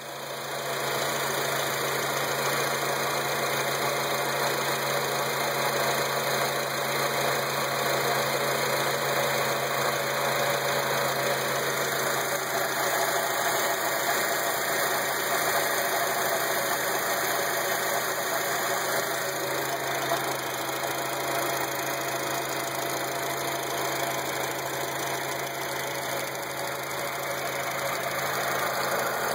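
Acura TSX engine idling steadily, making a weird noise of unknown cause that the owner cannot identify.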